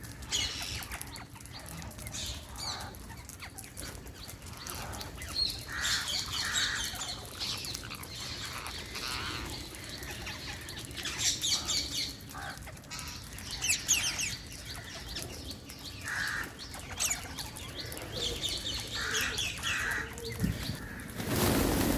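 Wild parrots giving repeated short, shrill chirping calls in clusters, with a broad rustling noise near the end.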